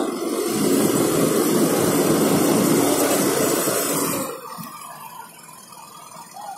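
Fendt tractor's diesel engine running steadily, then cutting off about four seconds in.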